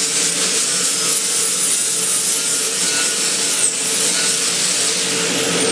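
Angle grinder with a flap disc abrading the surface of a quenched steel bar, taking it to bright metal so the temper colours can be watched. A steady high whine runs over the grinding rasp, dips briefly under load about two-thirds through, and winds down in pitch near the end as the grinder is released.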